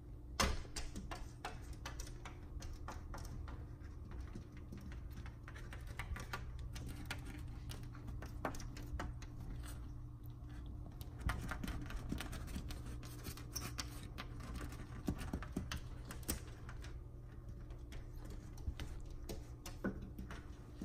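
Cats' claws tapping and scratching at window glass in quick, irregular clicks, with one sharp knock about half a second in, over a steady low hum.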